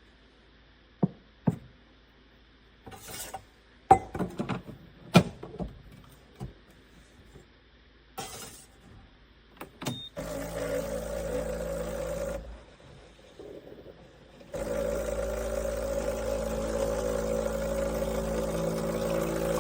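A series of sharp clicks and knocks from handling. Then, about halfway through, a steady machine hum starts, breaks off for a couple of seconds and starts again.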